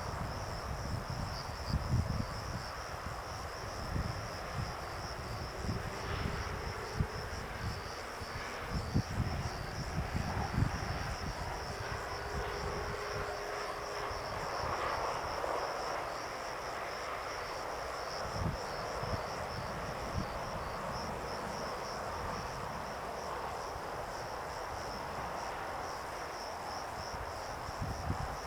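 Insects chirring in a steady, fast-pulsing high band, with low rumbling gusts of wind on the microphone, most of them in the first half.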